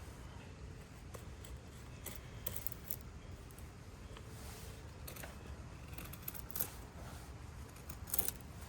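Camping gear being handled: small scattered clicks and clinks with brief rustles, and a sharper clatter near the end.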